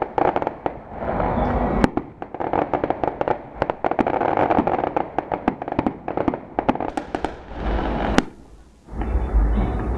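Fireworks going off: a rapid string of firecracker bangs and crackling over a continuous rumble. It stops abruptly about eight seconds in, and music with a steady bass takes over near the end.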